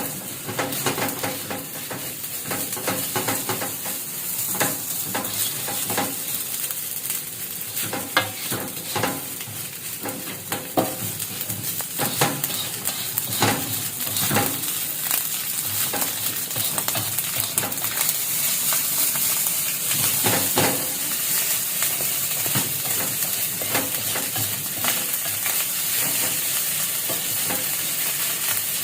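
Fried rice with corned beef sizzling in a frying pan as it is stirred, with frequent sharp clicks and scrapes of the utensil against the pan.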